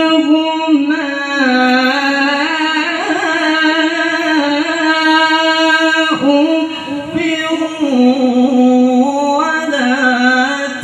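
A male qari chanting Quran recitation in the melodic murattal/mujawwad style, holding long ornamented notes that step and waver up and down in pitch, with a short break a little past the middle.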